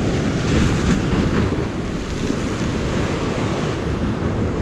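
Ocean surf breaking and washing over rocks, with wind buffeting the microphone: a steady rushing noise, a little louder about a second in.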